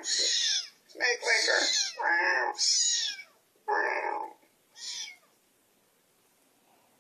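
Kitten meowing over and over, about six short, high meows in quick succession that stop about five seconds in, played from a tablet's speaker.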